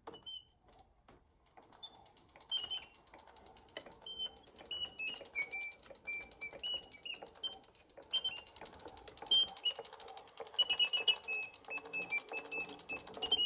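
A hand-cranked antique serinette (bird organ) with ten tin pipes, bellows and a pinned wooden barrel, playing a bird tune. High, quick whistling pipe notes run over a busy clicking of its wooden crank-and-barrel mechanism. After one short note at the start, the tune gets going about a second and a half in.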